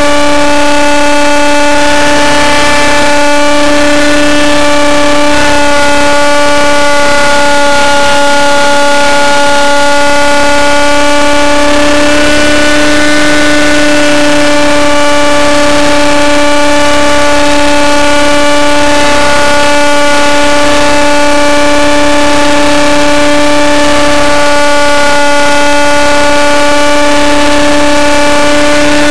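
Nitro RC helicopter's engine and rotor head running at a steady high whine in flight, holding an almost constant pitch with only slight wavering about halfway through. Loud, close to the limit of the recording.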